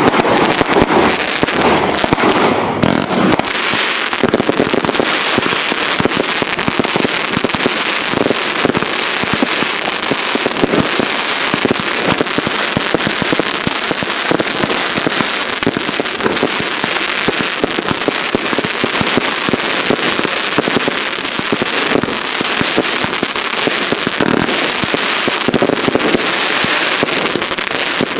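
Consumer firework cakes firing in quick succession: a continuous, dense crackling and popping of launched shots and bursting crackling stars, with no pause.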